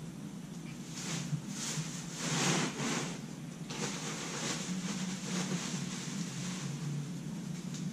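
Compressed wood shavings being pulled by the handful from a bale in a plastic bag and dropped into a trash can: repeated scratchy rustling of the shavings and the bag, over a steady low hum.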